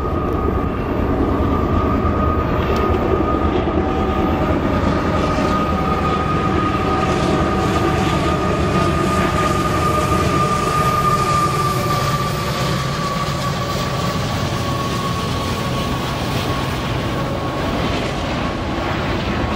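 Train rolling past at speed: steel wheels running on the rails, a steady rumble with a high whine held throughout that slowly sinks a little in pitch.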